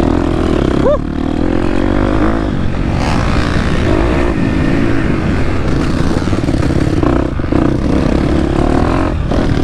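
The 2023 KTM 250 SX-F's four-stroke single-cylinder engine running hard under a riding load. Its pitch rises and falls as the throttle is opened and chopped, with short throttle chops near the end.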